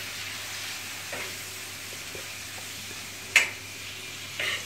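Lamb pieces sizzling as they sear in a hot frying pan, stirred with a utensil that knocks sharply against the pan a few times, loudest about three and a half seconds in.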